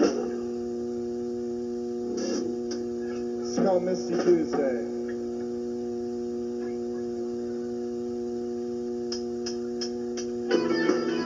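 Steady electrical mains hum between pieces of music, broken by a few short knocks and noises around the middle and some clicks later. Near the end a guitar starts playing.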